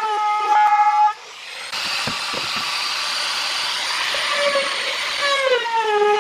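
Electric power tool running with a steady whine. For a few seconds it gives way to the loud, even noise of the tool cutting into wood. The whine comes back near the end with its pitch falling.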